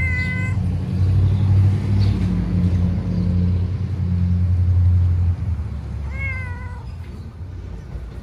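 Siamese-marked street cat meowing twice, once right at the start and again about six seconds in. A steady low rumble, the loudest sound, runs under the first five seconds while the cat is being stroked, then stops.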